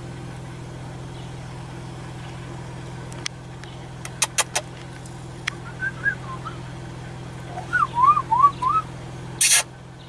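Vehicle engine idling steadily, with a few sharp clicks. A bird whistles short wavy notes twice, and a loud short burst of noise comes near the end.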